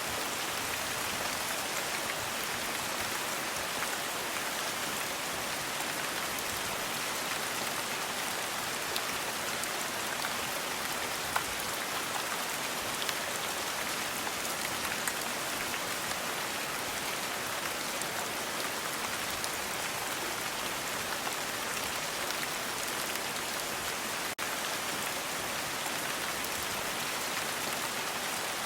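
Steady rain falling on a surface: an even, dense hiss with scattered ticks of single drops. The sound drops out for an instant about three-quarters of the way through.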